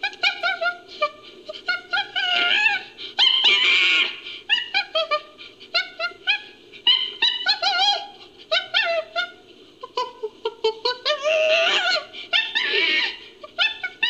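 Chimpanzee calls made into a sound effect: rapid runs of short, high hoots and squeals that glide up and down in pitch, with louder screaming bursts about four seconds in and again near the end, over a steady low hum.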